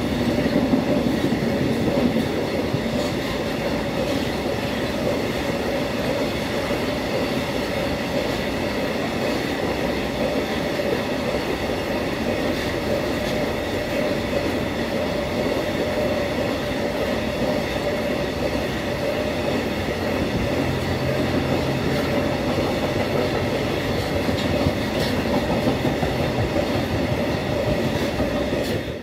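Freight train wagons rolling past at speed, a continuous loud rumble of steel wheels on rail with steady ringing tones over it.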